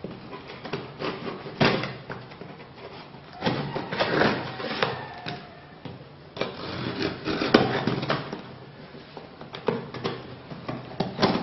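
Knife blade slicing and scraping through packing tape and cardboard on a shipping box, in irregular rasping strokes, with sharper bursts about two, four and seven seconds in.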